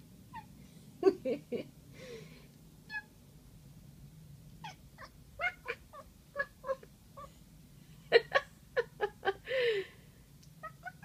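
Domestic cat giving many short, quick meows in bursts, ending with a longer meow that falls in pitch near the end.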